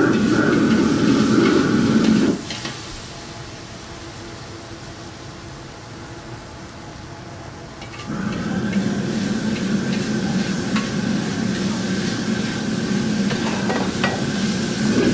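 Stir-frying in a wok over a high-power gas burner: the burner's roar with sizzling and a metal spatula stirring and scraping the wok. About two seconds in, the loud roar drops away, leaving quieter sizzling and stirring, and it comes back around eight seconds in.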